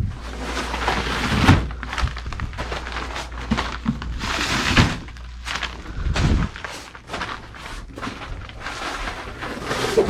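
Rustling, scraping and handling noise with several short knocks, as someone moves about and handles things in a cramped crawl space. A low steady hum runs underneath and stops about six seconds in.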